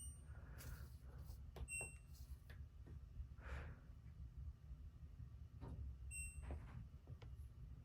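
Two short electronic beeps from the LG top-loading washing machine's control panel, about 1.8 seconds and 6.2 seconds in, with a few faint clicks, over a steady low hum.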